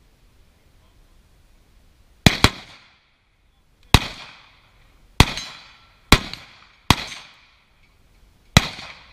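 Seven carbine shots at an uneven pace: a quick double shot about two seconds in, then five single shots roughly a second apart. Each sharp crack is followed by a short echoing tail.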